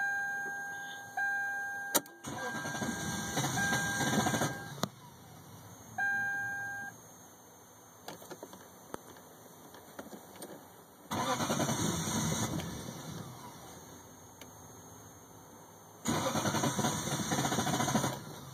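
1998 Lexus LS400's 1UZ V8 being cranked over by its starter in three separate attempts, about two seconds in, about eleven seconds in and about sixteen seconds in, while the owner tries to start a car that won't start. A steady warning chime sounds in stretches through the first seven seconds, and a sharp click comes just before the first attempt.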